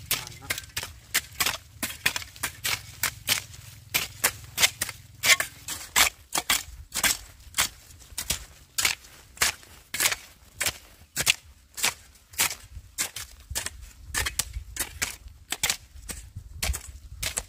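Repeated sharp blows of a hand tool striking wood, about two or three a second, kept up steadily as in chopping or hammering.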